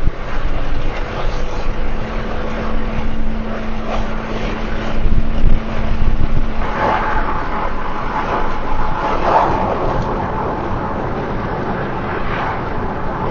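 Steady road and engine noise inside a moving car's cabin, with a faint steady hum for a few seconds in the first half.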